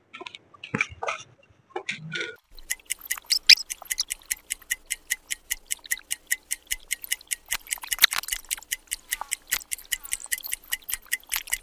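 Rapid, evenly spaced ticking at about five ticks a second, like a clock-ticking sound effect. It starts suddenly a couple of seconds in and cuts off sharply at the end, with a few faint scattered clicks before it.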